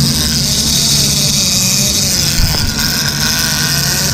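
Boat's outboard motor running steadily while trolling, with a steady hiss of wind and water over it and a single click about two and a half seconds in.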